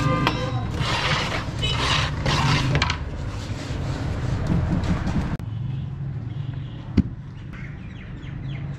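A steel blade scraping across wet cement in a mould, in rasping strokes over a steady low hum. Later comes a single sharp knock.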